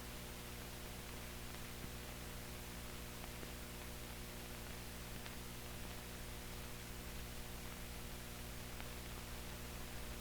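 Steady electrical hum with an even hiss and a few faint ticks, the noise floor of an old film transfer running with no programme sound.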